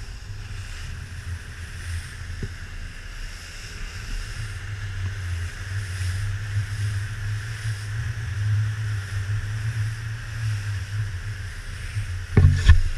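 Joker Clubman 21 rigid inflatable boat running in rough sea: a steady low engine rumble with wind buffeting the microphone and water rushing. A sharp, loud thump comes near the end.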